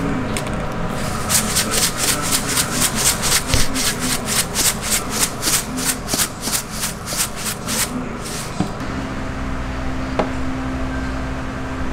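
Sesame seeds being sprinkled over a plate of fried chicken gizzards: a rhythmic rasping, about four strokes a second, that starts about a second in and stops after some six seconds. A steady low hum follows.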